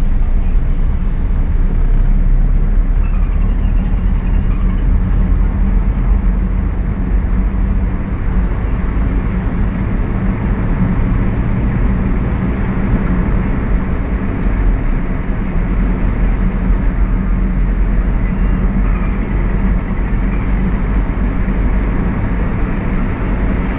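Car driving at a steady speed: a constant low rumble of engine and road noise.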